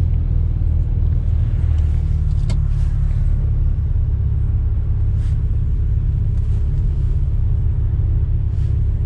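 Car engine and road noise heard from inside a moving car: a steady low rumble, with a single short click about two and a half seconds in.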